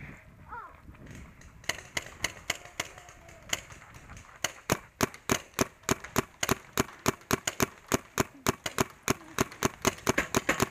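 Paintball markers firing: scattered shots at first, then from about five seconds in a rapid, steady string of about five shots a second.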